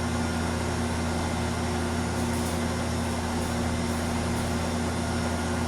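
Steady low machine hum, like a fan or motor running, holding one level throughout, with a few faint ticks.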